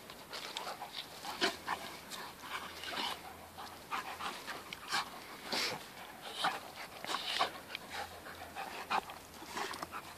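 Two retrievers, a Flat-Coated and a Golden, play-fighting mouth to mouth. There is a string of short, irregular breathy sounds as they tussle.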